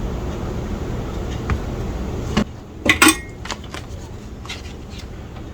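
Small metal tools and parts clicking and clinking on a workbench during kit assembly: a few sharp ticks in the second half, the loudest a quick pair about three seconds in. A steady background hiss cuts off abruptly about two and a half seconds in.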